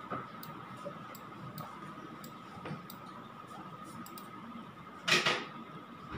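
Faint computer mouse clicks, a few scattered sharp ticks, over a steady faint high whine, with one short louder rush of noise about five seconds in.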